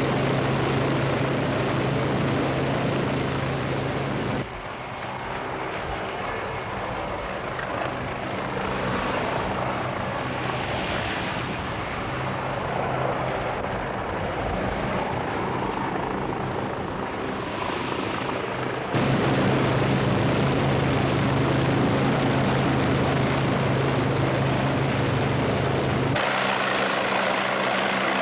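Westland Wasp helicopter running steadily, a low engine and rotor hum under a rushing noise. The sound changes abruptly about four seconds in, again later, and once more near the end. Through the long middle stretch the steady hum drops away, leaving a swelling, rushing noise.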